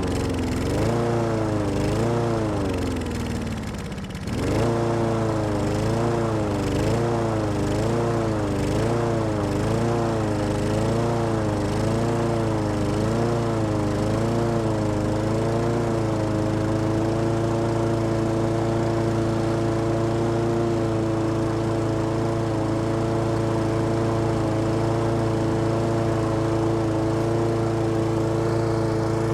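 Honda engine on a walk-behind lawn mower running after a carb-spray start, its speed rising and falling about once a second. About four seconds in it sags nearly to a stall and picks back up, and in the second half it settles to steady running. The hunting shows it wanting to die on stale fuel in the carburetor left over winter, kept going by shots of carb spray.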